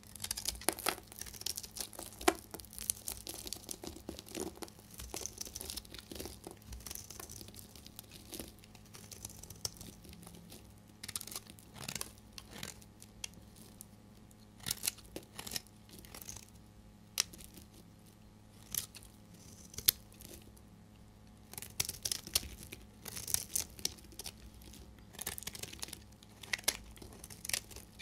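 A utility knife blade shaving and cutting a dry, hardened bar of soap: crisp scraping and crackling as curls and flakes come off. The strokes run close together for the first several seconds, then come as separate cuts with short pauses between them.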